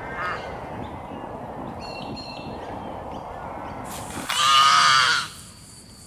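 A crow gives one long, loud caw about four seconds in, over a steady outdoor hiss and a few short, faint bird calls.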